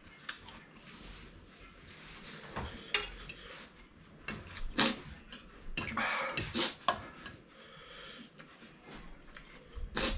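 Metal fork and spoon clinking and scraping against a ceramic plate while twirling noodles, in scattered, irregular strokes.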